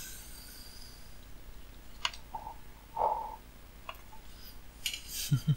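Light clicks and soft knocks from a printed circuit board being handled and turned over in the hand, its component leads and edges tapping.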